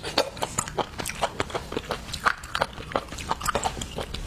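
Close-miked mouth sounds of someone chewing soft, tofu-like seafood: wet smacks and clicks coming irregularly, several a second.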